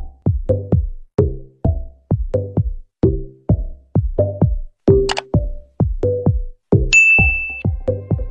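Electronic intro music with a steady, fast drum-machine beat and short pitched synth notes on each beat, and a brief high ding about seven seconds in.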